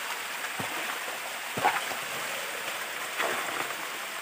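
Mountain stream water rushing over rocks in a steady hiss, with three short sharp sounds of steps and splashes in the water, the loudest about a second and a half in.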